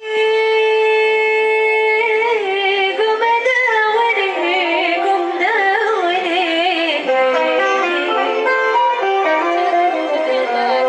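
A woman singing: she holds one long note for about two seconds, then sings ornamented phrases that waver up and down in pitch.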